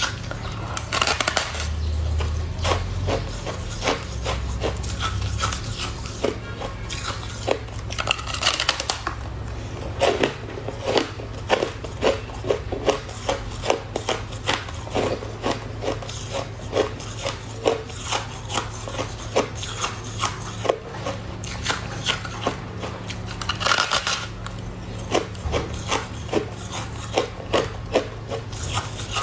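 Freezer frost being bitten and chewed close to the microphone: sharp crunches, roughly one or two a second, with a few longer rasping stretches, over a steady low hum.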